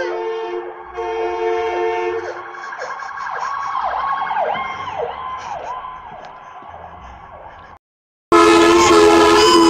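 Buell air horns sound a steady two-tone blast, break off briefly and blast again. Then an ambulance siren yelps, sweeping down and up about twice a second, and fades as the ambulance passes. After a short gap, a much louder air horn chord blasts with other siren tones over it.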